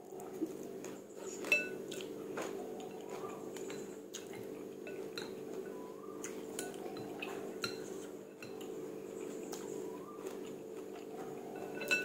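Metal spoon and chopsticks clinking against a ceramic soup bowl while noodle soup is eaten: scattered light clinks, a few with a short ring, the sharpest about a second and a half in. A steady low hum runs underneath.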